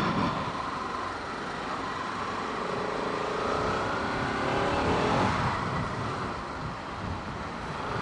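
Bajaj Pulsar RS 200 single-cylinder motorcycle engine riding in traffic, with road noise. The engine note rises in pitch as it accelerates from about three seconds in, peaks around five seconds, then settles.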